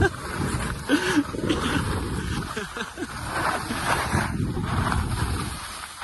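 Wind rushing over the microphone and skis scraping over snow during a fast downhill ski run, with a short shout about a second in.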